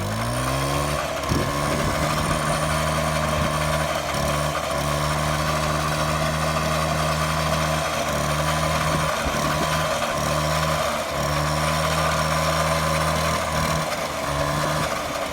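Piaggio Ciao moped's 49cc two-stroke single-cylinder engine revved up as the throttle opens at the start, then held at high revs as a steady buzz, dropping back near the end.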